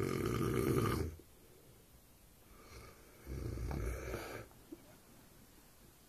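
A man snoring in his sleep: one long snore that ends about a second in, then another from about three seconds in lasting over a second, each a rough, low rumble.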